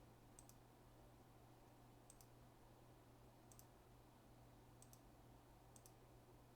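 Faint computer mouse clicks, five quick pairs spaced a second or so apart, over a steady low hum.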